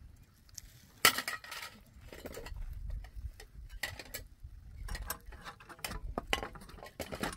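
Metal cookware, small pots and a flatbread griddle, clinking and knocking as they are handled, with a sharp clank about a second in and scattered lighter taps after it.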